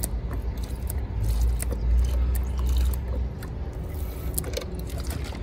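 A low, steady rumble with scattered light clicks and scrapes.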